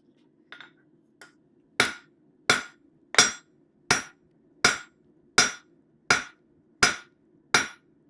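Blacksmith's hand hammer forging hot stainless steel bar stock on an anvil, drawing out and thinning a butter-knife blade. Two light taps come first, then steady heavy blows about every 0.7 seconds, each with a short metallic ring, over a faint low steady hum.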